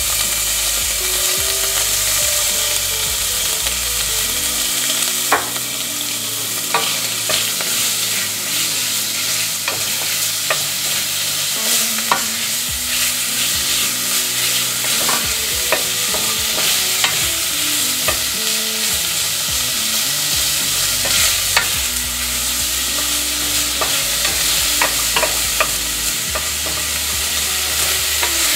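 Chopped bacon sizzling and frying in hot oil in a stainless steel pot, the start of rendering the bacon fat. It is stirred with a wooden spoon that knocks against the pot now and then in short clicks.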